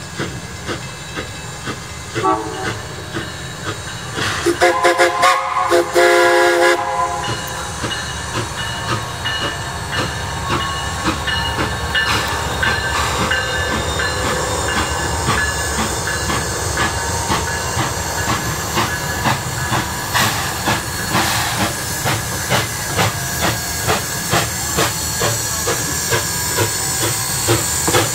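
Two train signal blasts, a short one about two seconds in and a louder, longer one about four and a half seconds in, then a 4-4-0 steam locomotive working its train with a steady chuff and hiss of steam over the rumble of rolling stock, growing louder as it comes closer.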